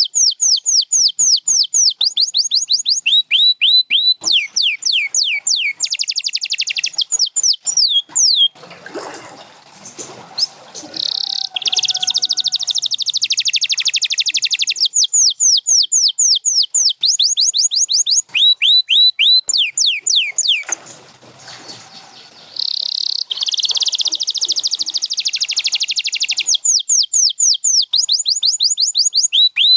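Domestic canary singing: long phrases of rapidly repeated falling whistled notes and fast, buzzy trills, breaking off briefly twice, about nine and about twenty-one seconds in.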